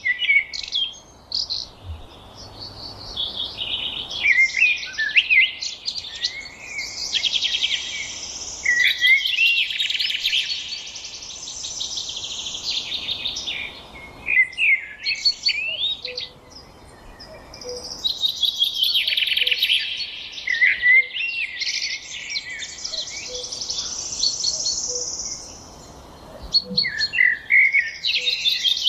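A songbird singing long, rapid, varied phrases of trills and whistles, in about four bouts with short pauses between them.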